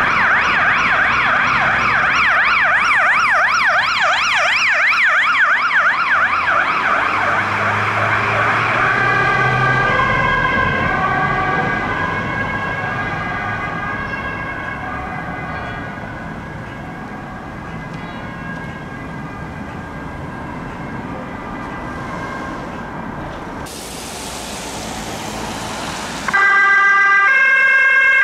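Volkswagen Crafter ambulance's siren sounding a fast rising-and-falling yelp, then changing about nine seconds in to slower stepped tones that fade as the ambulance drives away. Near the end a Volvo V90 Cross Country rescue-service car's siren cuts in loud, with a stepped alternating tone.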